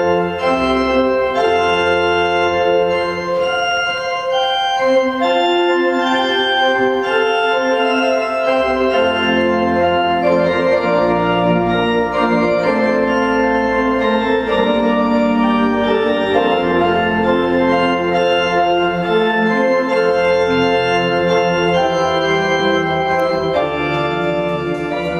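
Organ music: held chords with several voices moving together, the notes changing every second or so.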